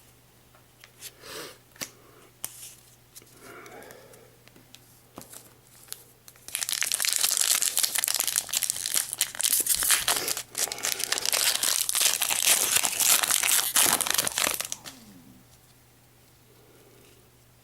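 Foil booster-pack wrapper being torn open and crinkled: loud, dense crinkling for about eight seconds starting around six seconds in, with a brief dip midway. Light handling clicks and rustles come before it.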